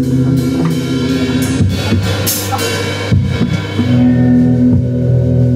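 Rock band playing live on drum kit, electric guitars and bass: a chord is held, the drums play a fill with cymbal crashes in the middle, and then the held chord comes back.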